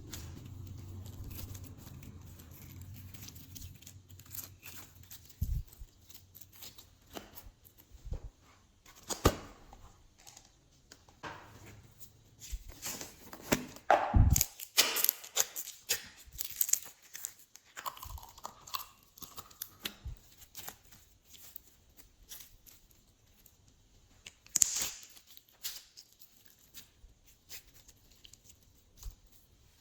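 Hands working glossy slime with things being mixed into it: irregular sticky clicks, pops and crackles, thickest in the middle. A low hum fades out within the first few seconds.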